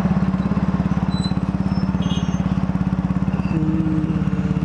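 Dafra Next 250 motorcycle's single-cylinder engine and exhaust running steadily under way, a fast even beat that holds its pitch.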